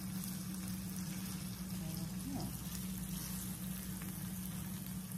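Grilled cheese sandwich frying in butter and olive oil in a nonstick skillet, a steady sizzle, with a steady low hum underneath.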